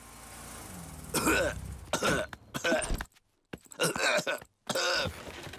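A cartoon character coughing: about six short, hoarse coughs in quick fits, starting about a second in. The character is sick with a cough he has caught.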